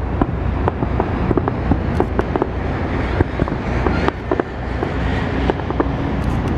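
Fireworks going off, a rapid, irregular string of sharp pops and crackles of varying strength over a steady low rumble with wind buffeting the microphone.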